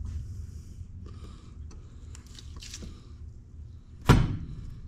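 A single sharp metal knock about four seconds in, as a tool is struck against the end of a hydraulic cylinder clamped in a vise while it is being taken apart. It rings briefly over a steady low hum.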